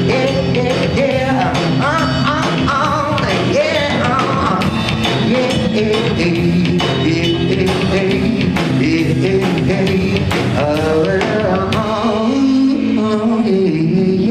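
Live band playing a hip hop song: drum kit keeping a steady beat under bass and a wordless sung melody.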